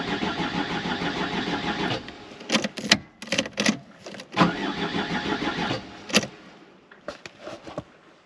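Starter motor cranking the Mercedes 190D's diesel engine in an even rhythm without it firing, because the wrong fuel filter leaves it starved of fuel; the cranking cuts off about two seconds in. Several sharp clicks and knocks follow.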